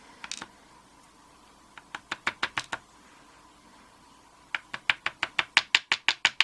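Rapid sharp taps on a steel padlock to knock its pins out of the core, in two runs: a short run of about seven taps, then a longer run of about six taps a second that grows louder.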